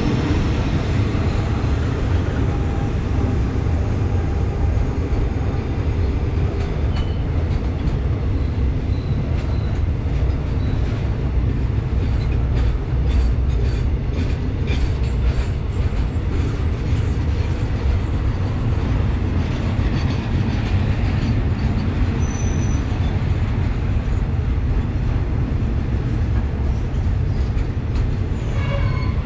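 Container freight wagons rolling past on the adjacent track: a steady rumble of steel wheels on rail, with clicks over the rail joints and a few faint, brief wheel squeals.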